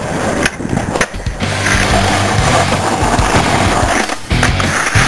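Skateboard wheels rolling and the board knocking on pavement, with background music coming in about a second and a half in and carrying on under the board noise.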